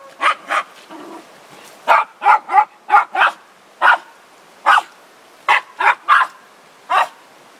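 Border terrier barking excitedly at a hanging moose head, about a dozen short, sharp barks in irregular groups of one to three.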